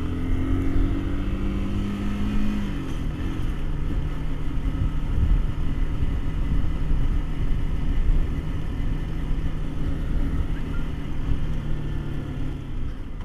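Sport motorcycle engine pulling away: its note rises for the first two to three seconds, then holds steady at a cruise along a paved road.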